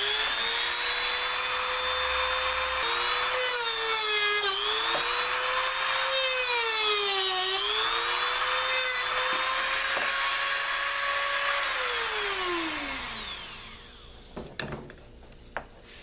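Dremel rotary tool with a cutoff wheel running at high speed and cutting through the end of a turkey wing bone, a steady high whine. Its pitch sags twice as the wheel bites into the bone. About twelve seconds in it is switched off and the whine falls away as it spins down, followed by a few light knocks.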